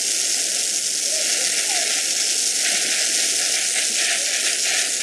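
Garden hose sprayer shooting water upward, a steady loud hiss of spray.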